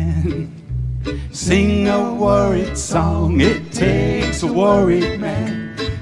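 A live acoustic string band playing country-blues: guitar, mandolin and bass behind sung vocals, with a brief dip in the music a little under a second in.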